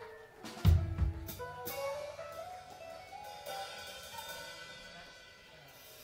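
Live rock band ending a song: a few drum hits with cymbal crashes about a second in, then electric guitar notes ringing out and fading away.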